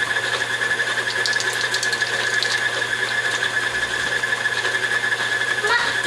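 Electric stand mixer motor running steadily with a constant whine and low hum, with light scattered clicks of a spoon working in a glass jar.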